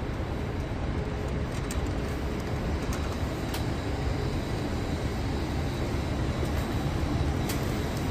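Steady low rumbling background noise with a few faint clicks scattered through it.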